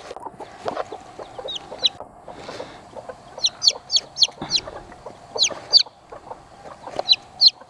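Baby chicks peeping: short, high chirps that fall in pitch, some single and some in quick runs of three or four. Bantam hens cluck lower underneath.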